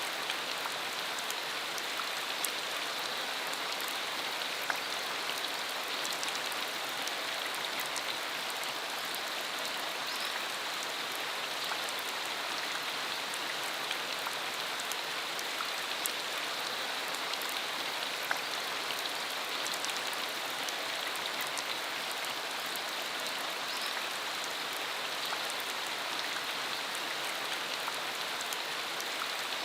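Steady heavy rain falling on a surface, an even hiss with scattered individual drop ticks.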